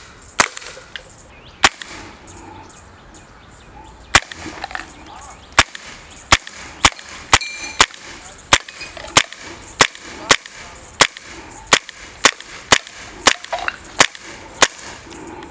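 Beretta M92A1 CO2 blowback air pistol firing a long string of sharp shots. Two spaced shots come first, then after a short pause a steady run of about two shots a second until near the end.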